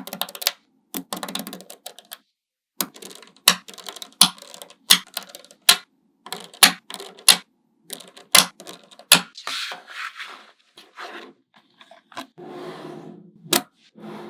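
Small magnetic balls clicking sharply as they snap together, in irregular single clicks and quick clusters, with a couple of longer rattling stretches as balls roll and shift against each other.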